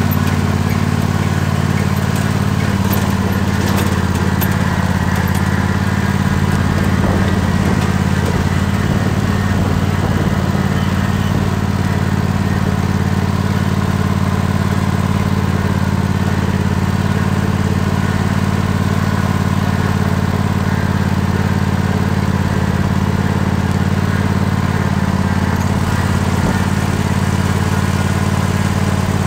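Tractor engine running at a steady, unchanging speed as the tractor is driven along.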